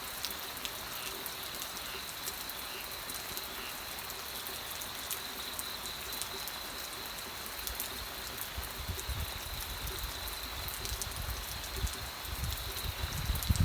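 Steady rain with individual drops ticking on a surface. From about eight seconds in, low rumbles swell and fade, loudest near the end.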